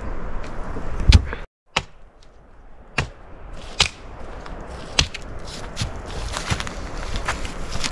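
A series of sharp knocks at irregular intervals, about half a dozen, over a low, rough background noise. The sound cuts out completely for a moment about one and a half seconds in.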